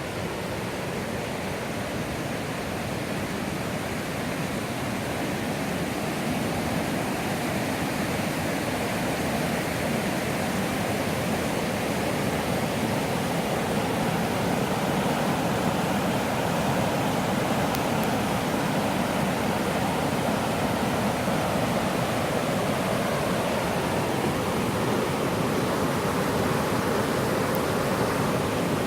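Steady rush of the Millstone River's flowing water, slowly growing louder.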